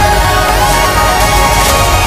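Background electronic music: sustained synth tones and sweeps over a steady bass beat.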